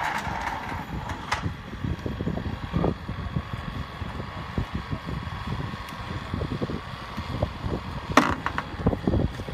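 A steady mechanical hum under wind buffeting the microphone, with a few sharp clicks about a second in and again near the end.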